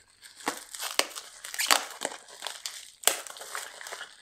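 Black plastic bag holding the 3D printer's LCD screen crinkling and rustling as hands open it, with several sharp crackles, the loudest about two and three seconds in.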